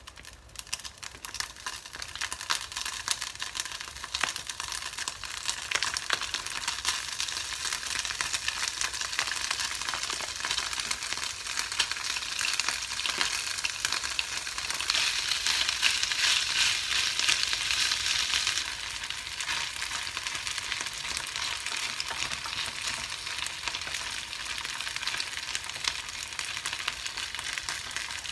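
Diced potato for rösti frying in a nonstick pan: a steady sizzle full of small crackles, louder for a few seconds past the middle.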